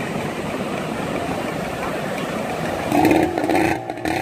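Fishing boat's outboard motor running as the boat heads out through the surf, with breaking waves washing underneath. About three seconds in, a louder wavering pitched sound rises over it.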